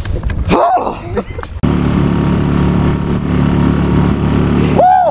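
Small gas outboard motor, a Mercury 2.5 hp four-stroke, running steadily under way. It cuts in about one and a half seconds in, after a short stretch of voice.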